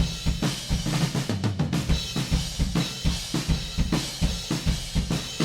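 Recorded drum kit playing a fast, steady beat of kick and snare. These are raw, unmixed album drum tracks running through a Neve 2254-style compressor plugin set to slow attack and a 3:1 ratio.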